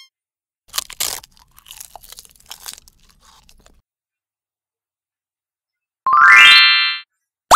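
Cartoon eating sound effect: a few crunchy bites and chews as the sheep eats. About six seconds in comes a quick rising run of bright chime tones, and a wobbly boing begins right at the end.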